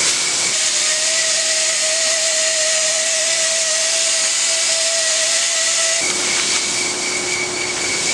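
Air-fed spray gun hissing steadily as it sprays resin and fiberglass, the first coat of glass, into a fiberglass boat hull mold. A steady whine runs under the hiss and stops about six seconds in.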